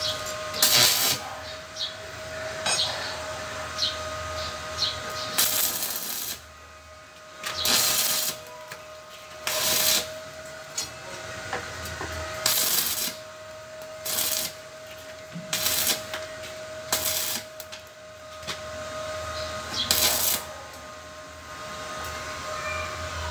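Electric arc welding with a small inverter welder: about nine short bursts of crackling arc, each half a second to a second long, as the electrode is struck against the metal and held briefly, with a steady hum underneath.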